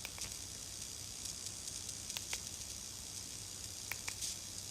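Faint, steady hiss with a few soft, scattered clicks of a mini flip phone's keypad buttons being pressed.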